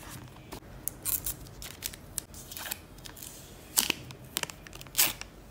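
Laptop packaging being handled in a run of short, crisp rustles and clicks: a paper card sleeve, and the protective plastic film around a MacBook power adapter, with the loudest crackles about four and five seconds in.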